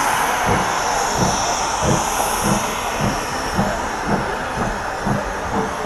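A train running, a steady hiss with a regular low beat about twice a second.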